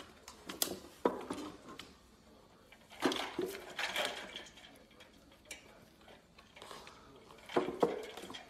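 Stainless steel dog bowls clanking and rattling as a Labrador puppy steps about in them, with ice cubes clinking in the water bowl. The knocks come irregularly, in clusters about a second in, around three to four seconds in, and near the end.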